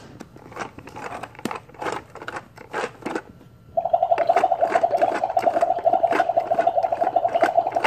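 Toy blender: plastic knocks and clicks as the lid goes on, then about four seconds in its button starts a steady buzzing whir, with the plastic food pieces rattling inside.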